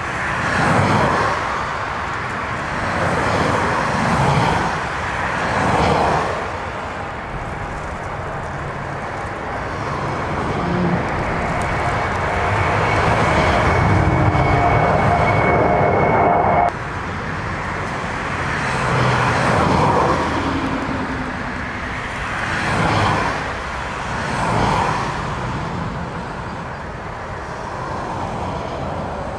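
Twin-engine jet airliners running in gusty storm wind, with repeated swells of wind noise on the microphone. Near the middle a jet passes low overhead: its engine whine with steady whistling tones grows louder, then cuts off abruptly.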